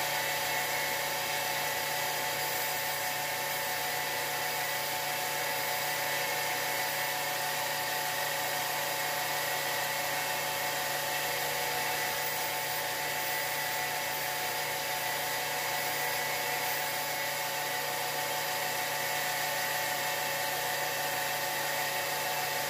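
Porter-Cable bench disc sander running steadily, its motor hum and disc noise even throughout, while a small wooden chair-spindle piece is held against the disc and sanded flat.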